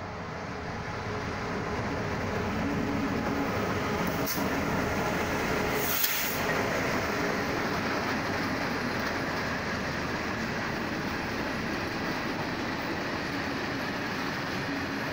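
Freight train passing close, hauled by two EMD G26CW-2 diesel-electric locomotives with EMD 16-645E two-stroke V16 engines, then its hopper wagons rolling by on the rails. The sound builds over the first couple of seconds and holds steady, with a sharp click about six seconds in.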